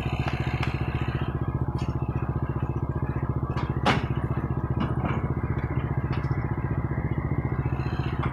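Single-cylinder engine of a motorcycle loader-rickshaw idling with a steady, rapid beat. About four seconds in there is a sharp metallic clank as a man climbs onto the rickshaw's metal cargo frame carrying a tub, with a couple of lighter knocks just after.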